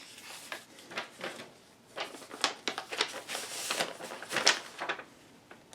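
A computer motherboard being handled: light clicks and taps with a stretch of rustling in the middle, the sharpest tap a little before the end.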